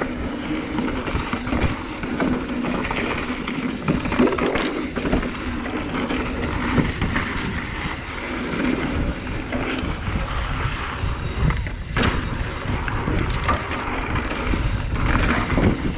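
Mountain bike riding down a rocky dirt trail: tyres running over dirt and stones, with the bike rattling and knocking over bumps.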